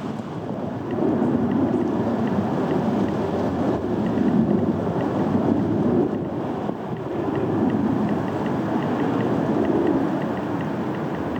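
Strong wind buffeting the microphone, a loud rushing noise that swells and eases in gusts.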